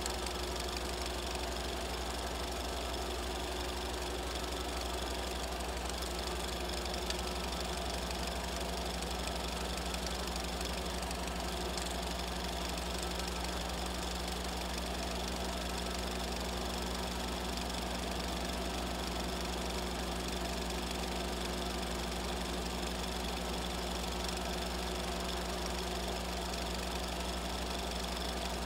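A steady low hum over a constant hiss.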